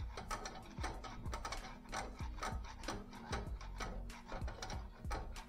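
Flat screwdriver turning the shoe adjuster wheel through the access hole of a Renault Captur's rear brake drum, backing off the brake shoes so the drum can come off. It makes a run of irregular metallic clicks, about two or three a second, over a low steady hum.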